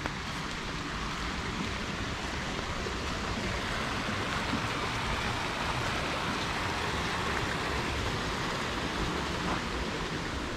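Steady rush of a small river cascading over rocks.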